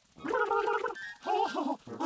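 A high-pitched, effect-altered cartoon voice in short phrases with brief gaps between them.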